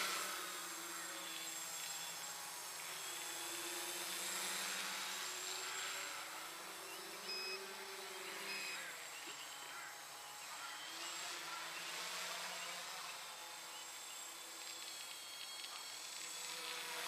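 Small homemade RC tricopter's three electric motors and propellers buzzing as it flies overhead. The pitch drifts up and down as the throttle changes.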